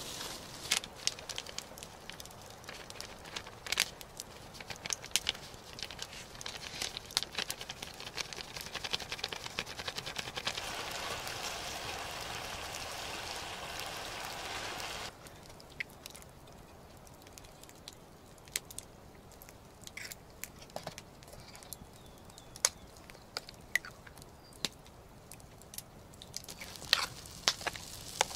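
Wood campfire crackling, with many sharp pops over a steady hiss for the first half; after an abrupt change about halfway it is quieter, with only scattered pops.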